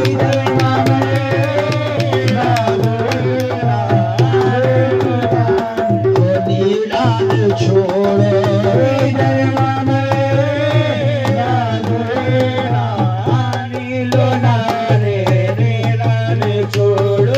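Live Sufi devotional kalaam music: tabla-style hand drums playing a fast, steady rhythm over a sustained low drone and a wavering melody.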